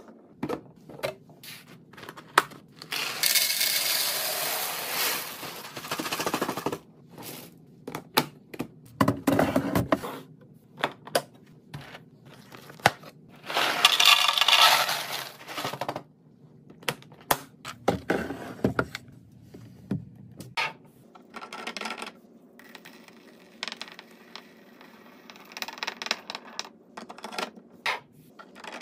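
Dry Cheez-It crackers poured from a box into a clear plastic container, a dense rattling rush a little past the middle, with a similar pouring rush earlier. Sharp clicks and taps from plastic containers and lids being handled on a countertop run throughout.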